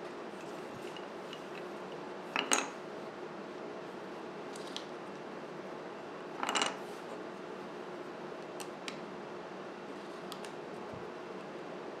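Pocket-knife parts and small wooden scales clattering on a wooden workbench as they are handled and set down, twice, with a few light clicks between, over a steady low hum.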